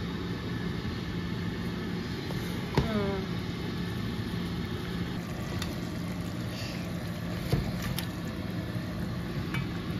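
Steady low mechanical hum in a kitchen, with a brief high chirp near 3 s and a couple of light clunks about three-quarters of the way through as beef is tipped from a plate into a pot of stew.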